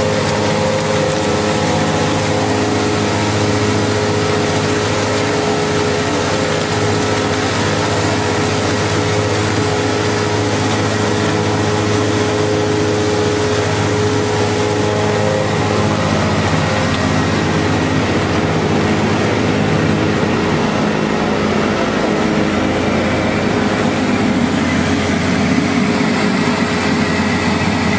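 An Elgin ESS-1448 decanter centrifuge and its solids discharge screw conveyor running, a loud, steady machine hum with several held tones. The tones fade about halfway through, and a rougher low rumble grows near the end.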